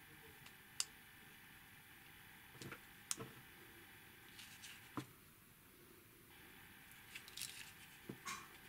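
Near silence with a few faint sharp clicks and soft rustles from hands fitting parts into a small punch-out 3D puzzle model.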